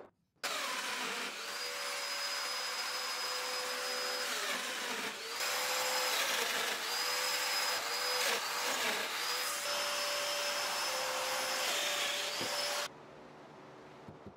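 Festool Domino joiner cutting mortises in red oak, its dust extractor pulling through the hose: a steady motor whine over the hiss of the extraction, dipping briefly a few times between plunges, then shutting off about 13 seconds in.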